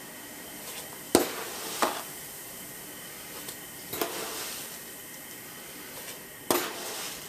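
A metal spoon scooping salt from a plastic tub and tipping it into a stainless steel pot of water, clinking sharply four times, over a steady faint hiss.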